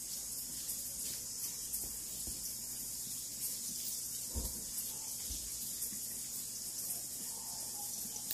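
Dense, steady high-pitched chorus of night insects and frogs, with a few faint lower calls about halfway through and again near the end.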